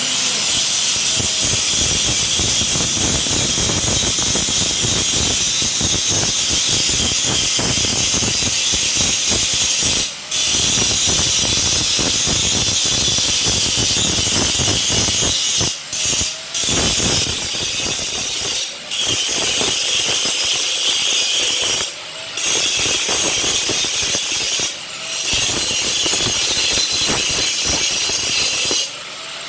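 Angle grinder grinding down the weld joints on a metal gate as finishing work. It runs loud and steady with about six brief breaks where it eases off the metal, and stops near the end.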